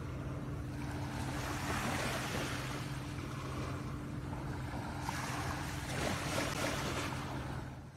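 Small waves washing up on a sandy shore, swelling twice, with wind on the microphone and a faint steady low hum underneath; the sound fades out at the end.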